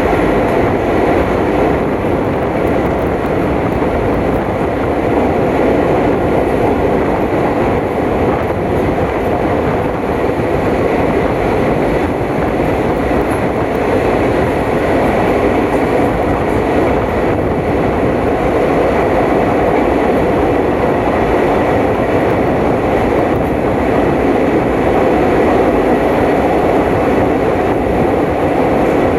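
Moving passenger train: steady running noise of wheels on rails and carriages, even throughout, with a faint steady high tone above it.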